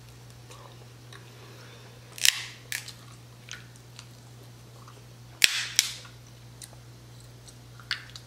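Close-miked snow crab leg shells being cracked and snapped apart by hand and teeth: two sharp loud cracks about three seconds apart, with smaller clicks of shell and some chewing between them.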